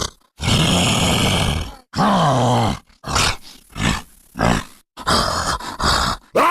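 Homemade Totoro creature sound effects: a voice growling and groaning, a long rough growl, then a groan falling in pitch, a run of short grunts, and two more growls near the end.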